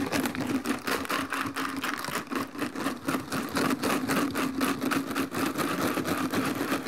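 Ice and salt rattling hard inside a large plastic jar that is being shaken fast, several clattering shakes a second. The jar is the ice-and-salt freezing bath for a bag of ice cream mix.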